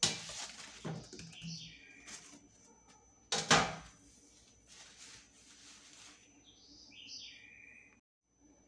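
White packing sheets being pulled out of a new air fryer oven's chamber: rustling and crinkling, with a louder crackle about three and a half seconds in and a couple of short squeaks as the material rubs. The sound cuts off suddenly near the end.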